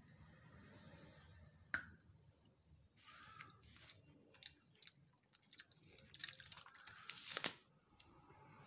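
Faint crinkling of aluminium foil wrapper with small clicks and crackles as a chocolate bar is handled on it, with a louder crinkle near the end.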